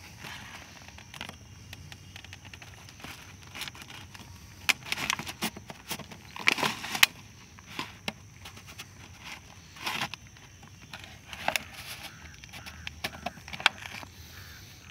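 Irregular crunches and clicks of shoes on a gravel verge and dry grass, with a plastic jar being handled; the jar is set down on the gravel near the end.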